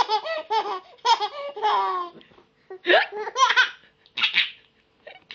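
Baby laughing in a string of high-pitched bursts, which die away near the end.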